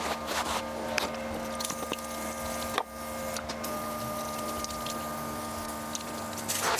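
Scattered clicks and scrapes of hand work on machine parts over a steady hum, with one sharper click a little before the halfway point.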